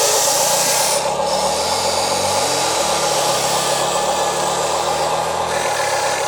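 Small electric motors of radio-controlled construction models running with a steady whine that shifts in pitch, along with gritty scraping and rubbing of soil.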